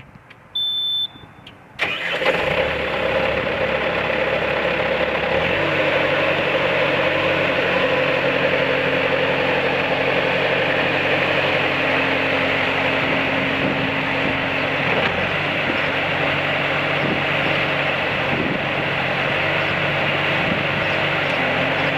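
2004 Bobcat S300 skid steer: a short high warning beep, then the diesel engine starts suddenly just before two seconds in and runs steadily at idle. Its note settles to a lower, steadier pitch about five seconds in.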